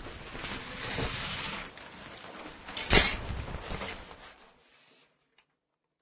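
Shower curtain being drawn: a rustling swish for about a second and a half, then a sharp, louder clack about three seconds in, with rustling that dies away by about five seconds.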